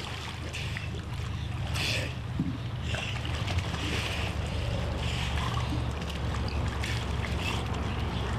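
Water splashing and churning in a swimming pool as a man and a large dog wrestle, in irregular surges, over a steady low rumble.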